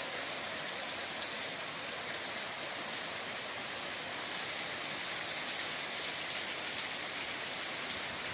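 Steady rain: an even hiss of falling rain with a few sharper single drop ticks standing out.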